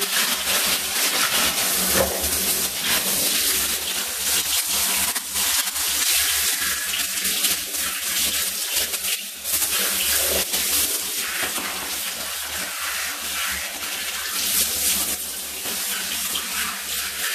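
Steady spray of water from a handheld shower head running over a wet cat's fur and into the bathtub.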